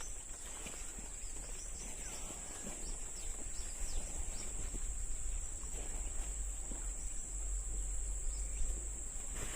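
Steady high-pitched insect chorus, like crickets or cicadas, with scattered faint clicks and rustling and a low rumble underneath.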